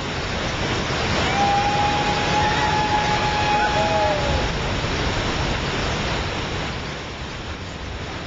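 Waterfall in flood, a heavy rushing of water pouring into its plunge pool. About a second in, a long, high, steady call sounds over it for about three seconds and ends in a short falling note.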